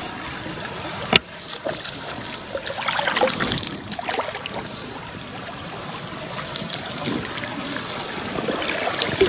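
River water running and trickling around a wading angler's legs, with a sharp click about a second in and a short high chirp repeating about once a second.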